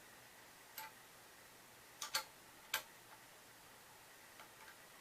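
A few short, sharp metal clicks and clinks of scooter parts being fitted together as the bar is set into the triple clamp: one early, a quick pair about two seconds in, another just after, and faint ticks near the end.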